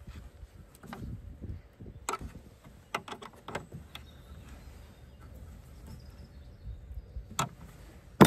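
Spanner tightening a battery terminal nut: a scatter of short metallic clicks and clinks as the spanner is fitted and worked on the nut, over a low rumble.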